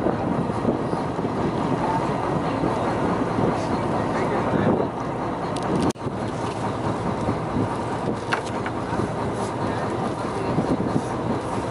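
Steady running noise of a fishing boat's engine, with men's voices over it; the sound cuts out for an instant about six seconds in.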